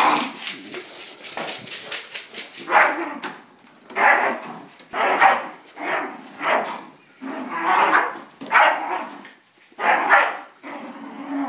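Dog barking over and over, about one bark a second, with a quick clatter of clicks under the first few barks.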